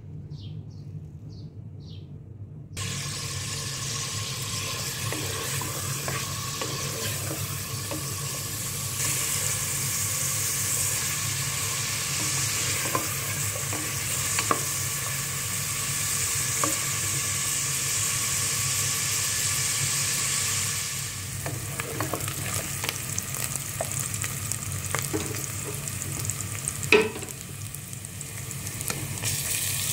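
Sliced onions and garlic cloves sizzling in hot oil in a metal pot, stirred with a spoon that scrapes and taps against the pot, with one sharper knock near the end. A bird chirps a few times before the frying starts, about three seconds in.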